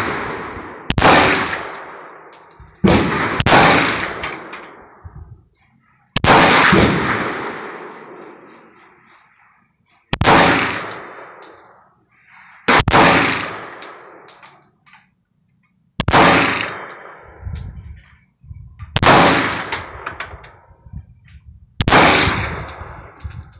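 9mm Glock 17 Gen 4 pistol fired in slow single shots, about ten in all, spaced one to four seconds apart, two of them close together a few seconds in. Each shot is sharp and loud, with a long echoing decay under the covered firing line.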